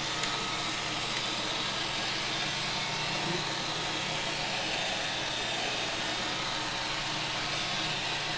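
Roomba robot vacuum running: a steady whir of its motors and brushes with faint constant tones.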